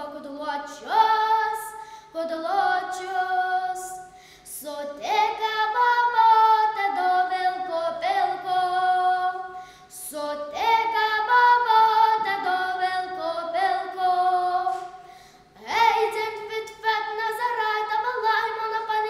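A girl singing a Lithuanian folk song solo and unaccompanied, in phrases a few seconds long with short gaps between them.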